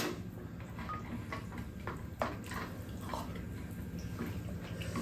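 Quiet eating sounds: spoons lightly clicking and scraping in bowls of curry soup, with soft slurps and mouth sounds, including one sharper click about two seconds in.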